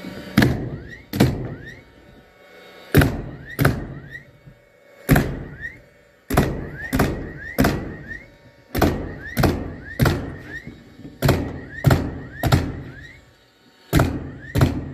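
Cordless framing nailer firing nails through plywood subfloor into the joists, about seventeen sharp shots at irregular intervals of half a second to a second and a half, each followed by a short rising whine as the tool's motor resets.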